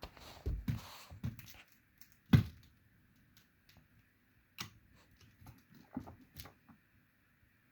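A kitten handling a small toy: light rustling and scattered small taps and clicks, with one louder thump about two seconds in.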